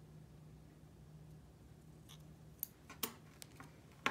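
Faint low hum, then from about halfway a few small sharp clicks and taps as metal tweezers and tiny printed paper pieces are handled and set down on a cutting mat.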